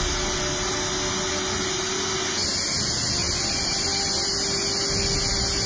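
B-1B Lancer's General Electric F101 turbofan engines running on the ground: a steady rushing jet noise with a faint steady hum underneath, its hiss growing brighter about halfway through.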